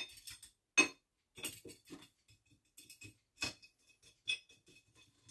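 Coarse gravelly bonsai substrate being shifted around in the bottom of a bonsai pot to spread it evenly for drainage: irregular small clicks and rattles of grit against the pot, loudest at the start.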